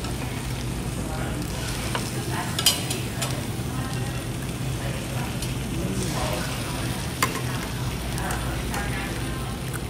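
Meat and seafood sizzling on a tabletop Korean barbecue grill while metal tongs stir and turn the food, with two sharp metal clinks, one near the start and one about two-thirds of the way in.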